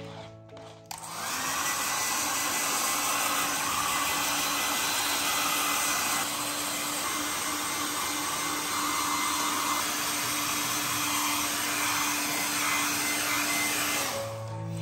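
Small electric blower motor, such as a hair dryer or vacuum cleaner, switched on about a second in. It spins up and runs steadily with a whine, then switches off near the end.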